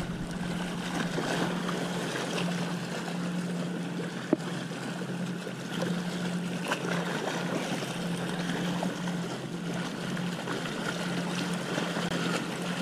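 A boat motor running steadily with a low hum, over wind and water noise, with one sharp click about four seconds in.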